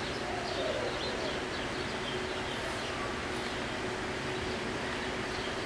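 Man-made waterfall in a polar bear exhibit, its water rushing steadily, with a faint steady hum underneath.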